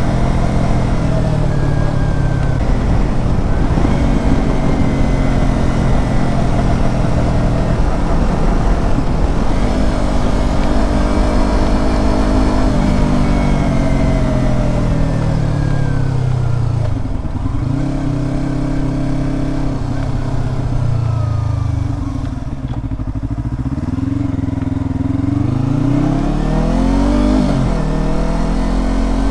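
Yamaha R25's parallel-twin engine running through a Proliner TR1R slip-on exhaust. Engine speed rises and falls several times, dipping sharply twice past the middle and rising and dropping quickly near the end.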